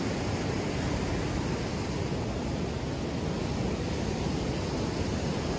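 Rough surf breaking steadily on a sandy beach, mixed with wind rumbling on the microphone.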